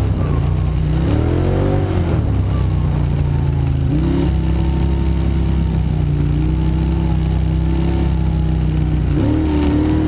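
Quad (ATV) engine under way on a dirt trail. It revs up and down twice in the first two seconds, runs at a steady pitch through the middle, and revs up again near the end.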